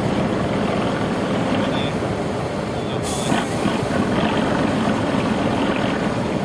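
Heavy trial truck's diesel engine running under load, a dense, steady rumble as the truck works on a steep sandy slope. A short burst of hiss comes about three seconds in.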